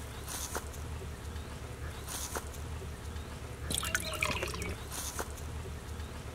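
Water splashing and dripping around a live snakehead (murrel) fish in a steel bowl of water, in a few short splashes, with water running off the fish as it is held up.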